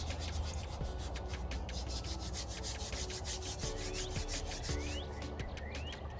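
Rapid, even scrubbing strokes on the rusty metal of a bicycle, rust being rubbed off during derusting.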